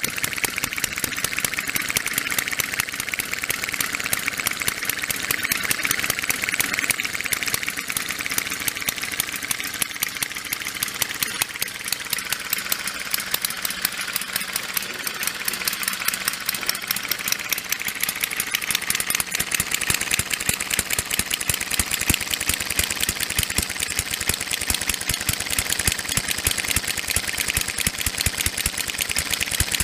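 Model inline twin-cylinder four-stroke engine, with its valves mounted below the cylinders, running steadily with a rapid, even clatter.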